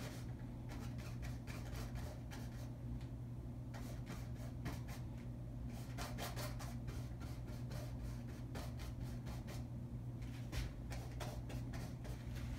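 Paintbrush dabbing and stroking paint onto a stretched canvas: soft, irregular scratchy strokes, some coming in quick runs, over a steady low hum.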